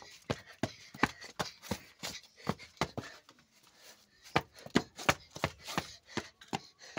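Hurried footsteps on a paved path, about two to three steps a second, with a short lull about halfway through.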